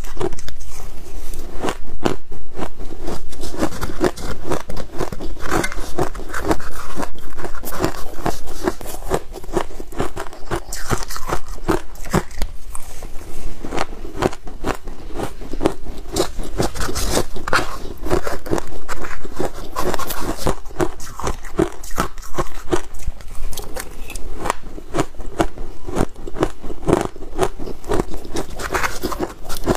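Close-up crunching of a mouthful of shaved ice being bitten and chewed, a dense run of crisp, rapid crackles.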